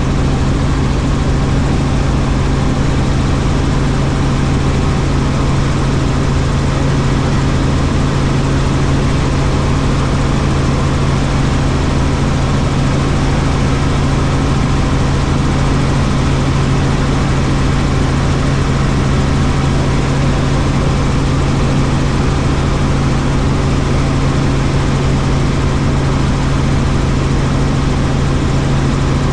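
Helicopter in steady flight: constant engine and rotor drone with a strong, unchanging low hum.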